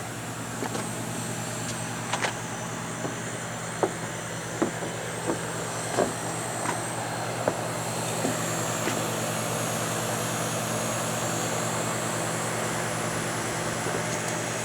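An outdoor HVAC unit running with a steady, even hum, just after the heating was switched on. Footsteps tick over it about every 0.7 seconds in the first half.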